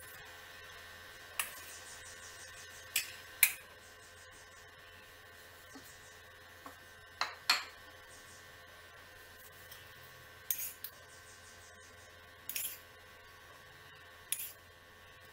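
A spoon clinking against small bowls: about eight short, sharp clinks spread out at uneven intervals, over a faint steady hum.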